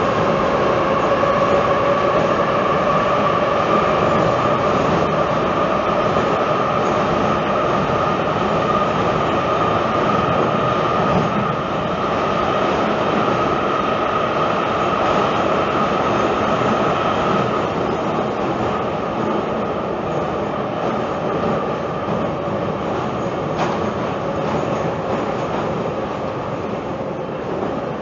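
Tbilisi metro train running, a loud continuous rumble with a steady whine in it, easing slightly over the last third.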